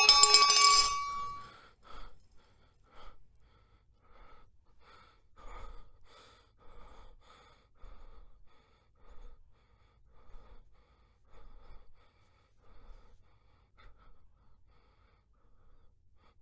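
A steel tumbler knocked over by a bare foot, clattering and ringing on the floor for about a second and a half. Then faint soft sounds follow about once a second.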